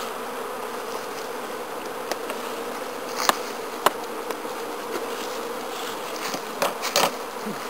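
Honeybees buzzing steadily around an open wooden hive, an even hum. A few sharp knocks break in, the last of them near the end as a metal hive tool prises at the crown board.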